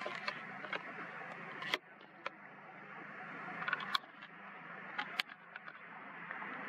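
Muddy floodwater rushing and splashing as monkeys wade and play in it, with a few sharp splashes. The sound drops away abruptly twice and then builds again.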